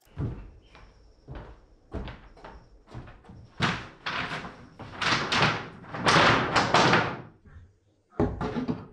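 Long wooden battens knocking and clattering against one another and a wooden plank floor as they are carried and set down: a few separate knocks, then a dense run of wooden clatter in the middle, and another burst near the end.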